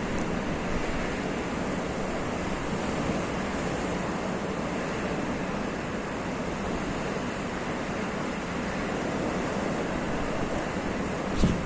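Snowstorm wind blowing steadily, a dense even rush of noise with wind buffeting the microphone, and a short gust bump near the end.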